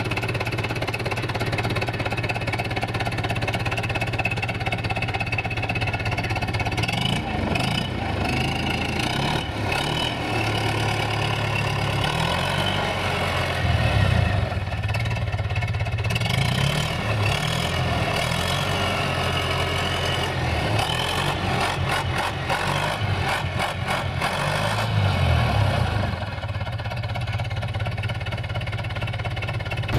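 UTB U650M tractor's four-cylinder diesel engine running at idle, still cold after its first start in three months. The engine note wavers in pitch through the middle of the stretch.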